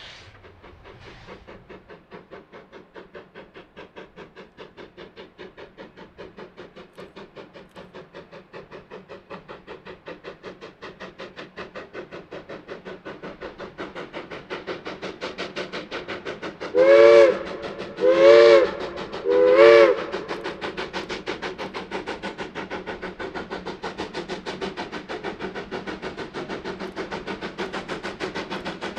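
Durango & Silverton narrow-gauge steam locomotive working toward the listener with a fast, steady beat of exhaust chuffs that grows louder as it approaches. A little past halfway its chime whistle sounds three short blasts, about a second and a half apart.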